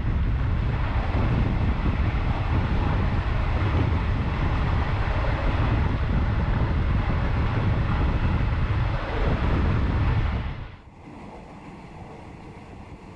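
Wind buffeting the microphone over the low rumble of a moving train. About ten and a half seconds in, the noise drops sharply to a much quieter steady rumble.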